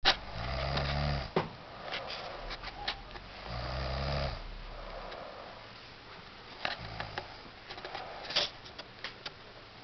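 A man snoring heavily: three low, rattling snores about three seconds apart, the third shorter and weaker, with a few sharp clicks in between.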